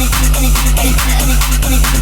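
Electronic club music from a DJ mix: a deep held bass under fast, even drum hits about four a second.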